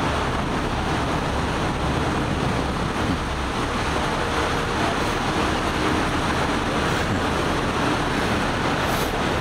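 Steady low rumble of idling emergency vehicles and road traffic, even in level throughout with no sudden sounds.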